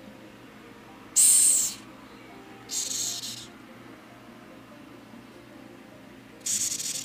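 Madagascar hissing cockroach hissing three times as it is prodded with a finger: short bursts of breathy hiss, the first the loudest, the third starting near the end. This is its disturbance hiss, air forced out through its breathing pores.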